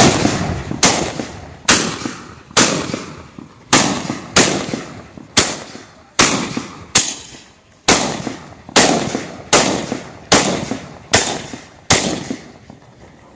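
Mascoli, small black-powder charges set in a row on the ground, firing one after another as the fuse burns along the line: about fifteen sharp bangs, roughly one every 0.8 seconds, each ringing off briefly. The string stops about a second before the end.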